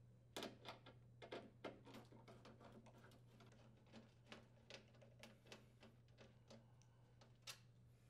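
Phillips screwdriver turning out screws from a range door's sheet-metal panel: a faint run of irregular clicks and ticks as the bit works in the screw heads.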